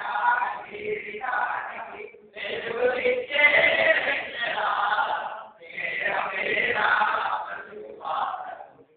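A group of voices singing or chanting together in unison, in sustained phrases of a few seconds with short breaks between them.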